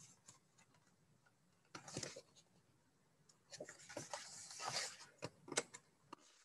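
Faint rustle of a picture book's paper page being turned, with a few small clicks near the end.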